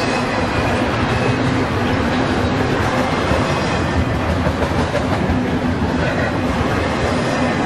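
Double-stack intermodal container train rolling steadily past, a continuous rumble of steel wheels on the rails.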